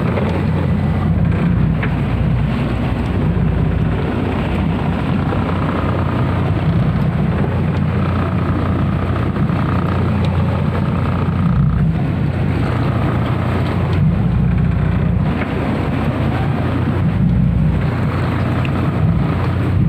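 Small crew boat's engine running steadily under way, with wind buffeting the microphone.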